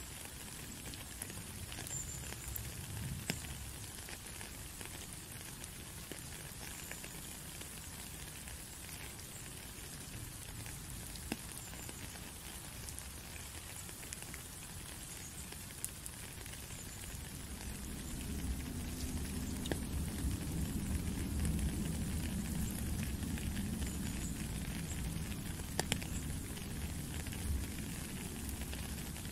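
Steady rain falling on a puddle and wet gravel, with scattered sharper drip ticks. A low rumble swells up a little past halfway and eases off near the end.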